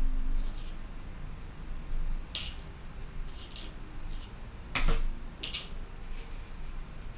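Quiet handling noise while painting with a watercolour brush: a few short, light clicks and taps over a low steady hum, the loudest a soft knock about five seconds in.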